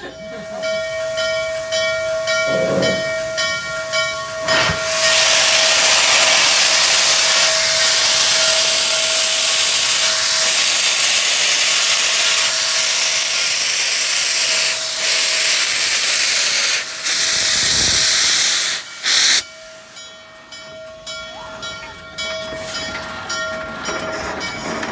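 Norfolk & Western J Class 611 steam locomotive venting steam at the cylinders: a loud, steady hiss that starts about five seconds in, breaks off briefly a few times, and stops near the end. Under it runs a steady whine, and light regular ticks come in during the quieter last few seconds.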